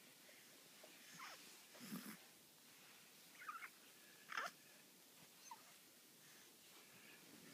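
Newborn baby making a handful of short, faint squeaks and grunts, spaced out over a few seconds, some dropping in pitch.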